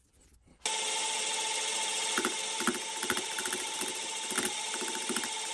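A power tool's electric motor running steadily with a constant whine. It cuts in abruptly about half a second in, with irregular knocks and ticks from the tool working the material.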